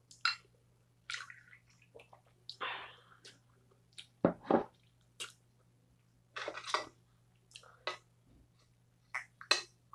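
Soju poured from a glass bottle into a small shot cup, a short splashing pour, followed by close-up mouth noises as the shot is drunk.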